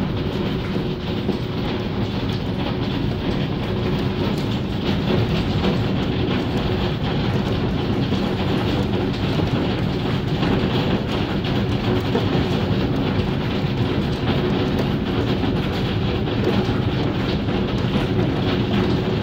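Hailstorm: a dense, steady clatter of countless hailstones striking, with no let-up.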